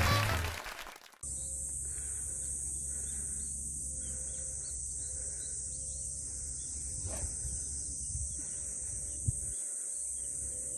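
A steady high-pitched drone of insects, with a faint sharp tick about nine seconds in. Background music and a voice fade out in the first second.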